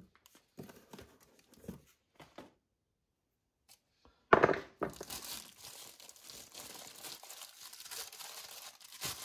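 Clear plastic packaging bag crinkling and tearing as a tool is unwrapped, with scattered rustles at first, a short pause, a sudden loud crackle about four seconds in, then steady crinkling.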